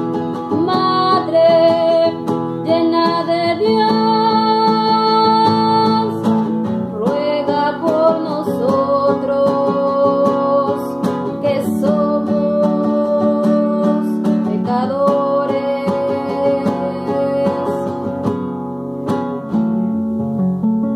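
A woman singing a slow song, accompanying herself on a nylon-string classical guitar with a capo, strummed. Near the end the voice drops out and the guitar plays on alone.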